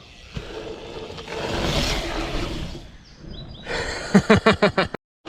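A rush of noise swells and fades over about two seconds. Then a person gives a quick run of loud shouts, about six in a second, which stop with a sudden cut.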